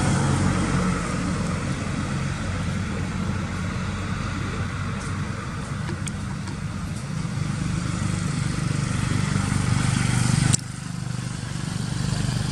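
Engine running steadily, a low hum, dropping suddenly in level about ten and a half seconds in.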